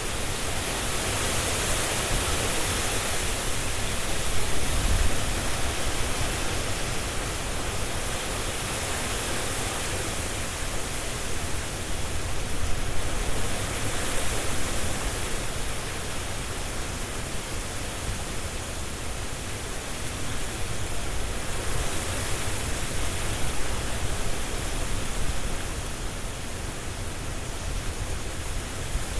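Strong wind blowing through trees with leaves rustling: a steady rushing noise that swells and eases every several seconds.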